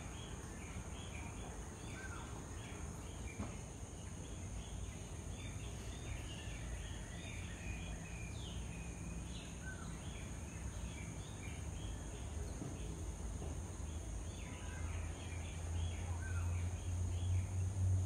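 Small birds chirping and twittering over and over, with a steady high insect drone beneath, and a low hum that grows louder near the end.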